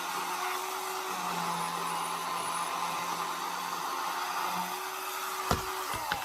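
Ryobi 18V cordless electric chainsaw running steadily at full speed as it cuts into the tree trunk. There is a sharp knock about five and a half seconds in, and the motor's pitch drops right at the end.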